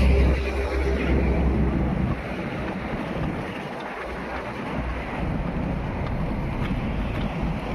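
Wind buffeting the microphone: a steady rushing noise with heavy low rumble, strongest in the first two seconds, then easing.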